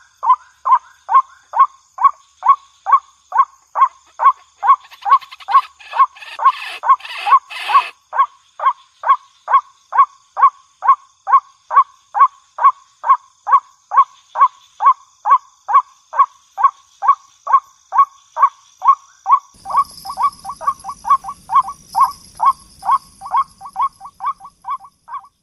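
Waterhen (jal murgi) calling: a fast, even series of short notes, about three a second, each dropping in pitch. A brief burst of rustling noise comes about six seconds in, and a hiss with a low rumble joins under the calls near the end.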